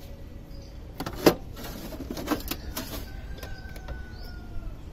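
Hands working the battery compartment of an electric motorcycle: a few sharp clicks and knocks, the loudest about a second and a half in, over a steady low rumble, with a faint thin whine sliding slightly down near the end.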